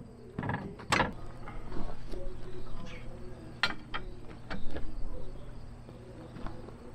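Scattered metal clanks and sharp knocks of hand work on a tractor's drawbar hitch extension, about a dozen in all, with the loudest about a second in.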